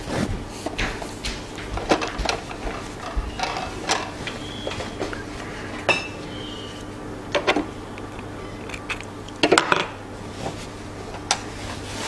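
Scattered clinks and taps of small hard objects, a few with a brief ringing tone and a quick cluster of louder clicks near the end, over a steady low hum.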